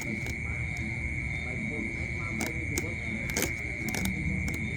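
Faint, low background voices under a steady high-pitched whine, with a few sharp clicks, the clearest about three and a half seconds in.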